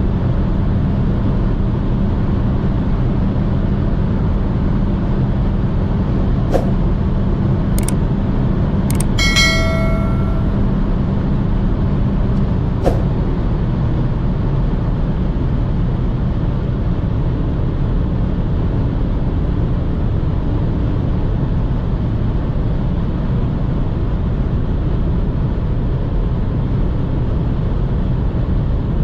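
Inside the cabin of a 2006 BMW 118i (E87, 2.0-litre four-cylinder petrol, automatic) at high autobahn speed: steady wind, tyre and engine noise, with a low engine drone that fades out about twelve seconds in. A few sharp clicks and a short ringing tone stand out between about six and thirteen seconds.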